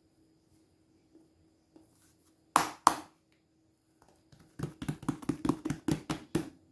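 Hands working a strip of bread dough on a paper-covered table: two sharp knocks a little before halfway, then a quick run of about ten pats and rubbing strokes, roughly five a second, near the end. A faint steady hum runs underneath.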